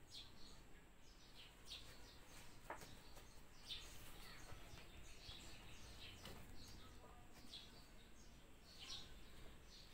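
Faint chirping of small birds: short, high, falling chirps about one or two a second over low background noise, with one lower falling squeak nearly three seconds in.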